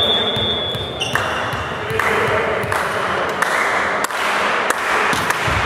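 A referee's whistle blows one steady note, ending about a second in. Then come a few sharp volleyball hits and players' shouts echoing in a sports hall.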